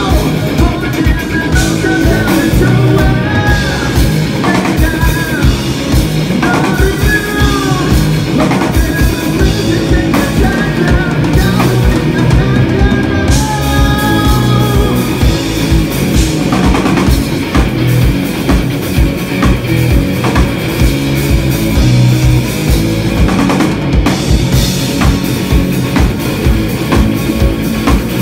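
Live rock band playing: distorted electric guitar through amplifiers and a pounding drum kit, with a sung lead vocal over roughly the first half, after which the guitar and drums carry on alone.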